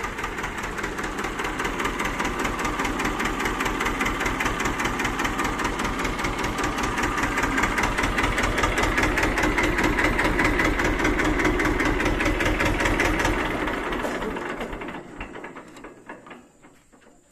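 Two-cylinder Simpsons S217 diesel engine of a TAFE 25 DI tractor idling with a fast, even knock, then running down and stopping near the end.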